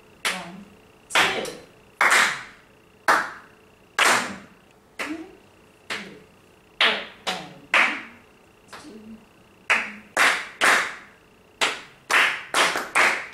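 Hand claps tapping out a written rhythm: at first about one clap a second, then quicker groups of two and three claps in the second half.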